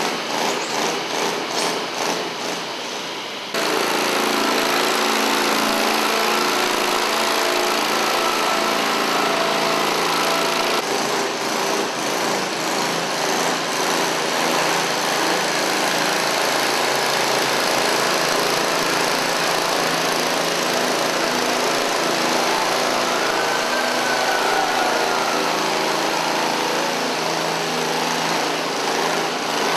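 Small gasoline engines of quarter-scale pulling tractors running hard under load as they drag a weighted pulling sled down a dirt track. The level jumps abruptly about three and a half seconds in.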